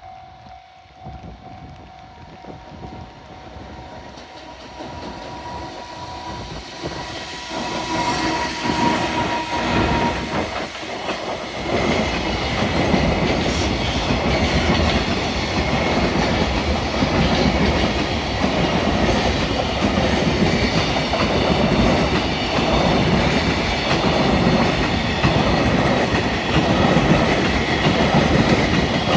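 Electric-locomotive-hauled freight train approaching, growing louder over the first ten seconds or so. It then passes close by, its wagon wheels clattering steadily over the rail joints.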